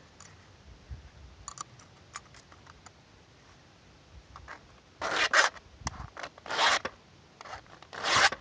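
Flat file rasping across the rakers (depth gauges) of a chainsaw chain, set against a raker gauge: light clicks and taps at first, then about four short file strokes in the second half. The rakers are being touched up so they are consistent.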